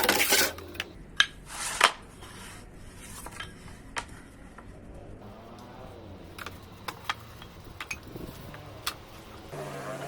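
A short rush of noise, then a series of scattered light clicks and knocks, like small objects or tools being handled.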